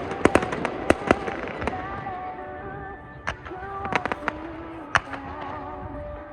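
Fireworks shells bursting with sharp bangs: a quick cluster in the first second, then scattered single reports, with music playing underneath.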